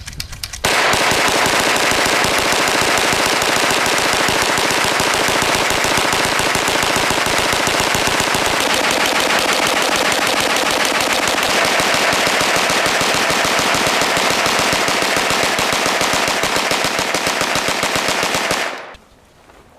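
Hand-cranked 9mm Gatling gun firing a long, continuous string of rapid shots. A few ragged shots start it, then the fire runs steady and cuts off abruptly near the end.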